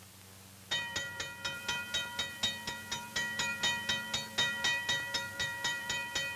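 Railroad grade-crossing signal bell ringing in rapid, even strokes, about four a second, starting under a second in after a faint low hum.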